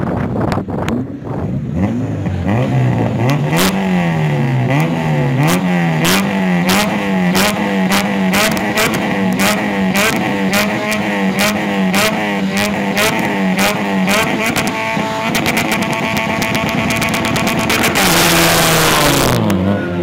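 Supercharged Honda Civic Si's four-cylinder engine revving on the start line: swung up and down a few times, then held at steady high revs with rapid sharp cracks. Near the end it launches in a loud rush and the pitch falls as the car pulls away.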